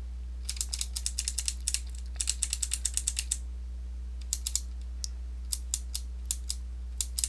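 Typing on a computer keyboard: two quick runs of keystrokes, then scattered single key presses, over a steady low hum.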